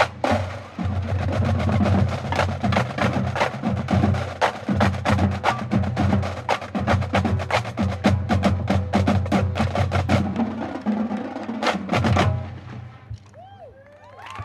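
Marching drumline of snare drums, tenor drums and bass drums playing a fast cadence of dense stick strokes, including clicky rim and stick hits. The cadence ends on a final hit about twelve seconds in and cuts off sharply.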